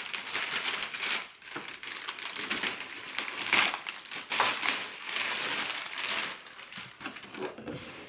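Clear plastic bag crinkling and crackling as a boxed action figure is handled and pulled out of it. The crinkling goes on in uneven bursts, louder in places, with no pauses.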